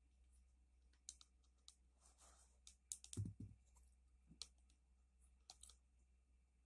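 Faint scattered clicks of small river stones knocking against each other as they are set and pressed onto a glued stone stack, with one louder dull knock about three seconds in.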